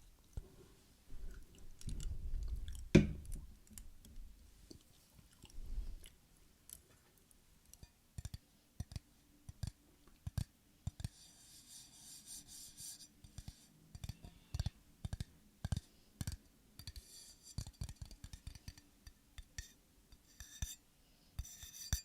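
Close-miked ASMR trigger sounds: irregular sharp taps and clicks on small objects, with low rumbling handling noise and one loud knock about three seconds in. Later there are stretches of fine scratchy rubbing.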